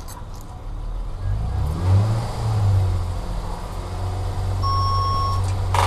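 Car engine running and being revved, rising and falling in pitch about a second or two in, then running steadily. A short electronic beep sounds near the end.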